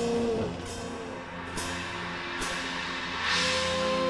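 Dramatic underscore music: low sustained tones with soft cymbal strikes about once a second. Near the end a wavering high note swells in.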